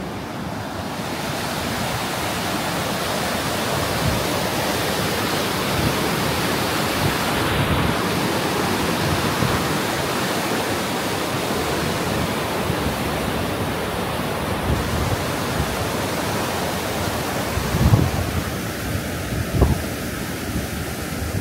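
Churning wake of a cruise ship rushing and hissing as a steady wash of water noise, with wind on the microphone. Two low wind buffets stand out near the end.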